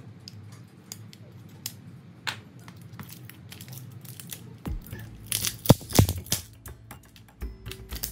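Sharp plastic clicks and crackles of an OPPO A15's battery being pried out of the phone frame and its adhesive tearing away, with the loudest cluster of clicks about five to six seconds in. Soft background music runs underneath.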